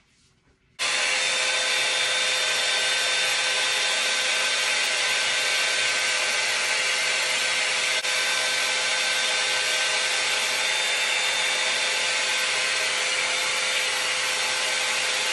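Hot air brush (a blow-dryer brush) switched on about a second in, its fan blowing steadily with a faint whine, pressed against the edge of a synthetic wig.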